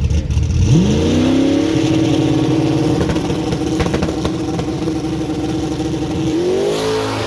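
Turbocharged Ford Mustang's engine revving hard: the pitch climbs steeply about a second in and is held high and steady for several seconds, then rises again briefly near the end.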